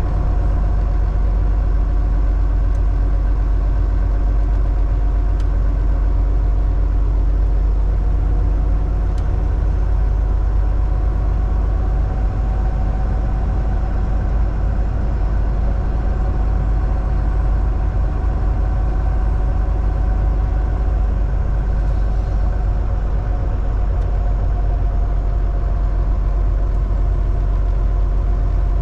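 A heavy truck's diesel engine drones steadily under way over a constant low road rumble. Its pitch shifts slightly now and then.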